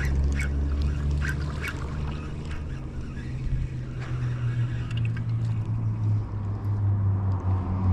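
An engine running steadily with a low hum, its pitch drifting slightly in the second half, with a few light clicks in the first couple of seconds.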